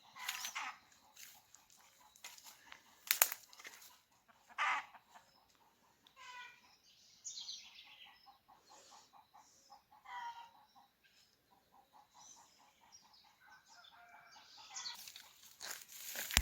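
Chickens clucking in quick runs of short notes, with a few louder squawks in the first five seconds, and a rustling noise near the end.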